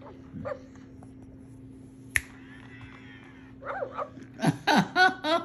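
A single sharp click about two seconds in, then a Joy For All robotic companion pup barking and yipping from its built-in speaker, several short barks in quick succession near the end.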